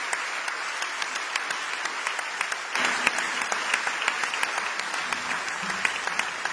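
Audience applauding, many hands clapping steadily, swelling briefly about three seconds in.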